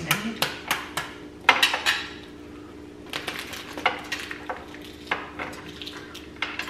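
Scattered sharp clicks and clinks of cutlery, shells and dishes as a steamed lobster is broken apart and boiled balut eggs are peeled with spoons, over a faint steady hum.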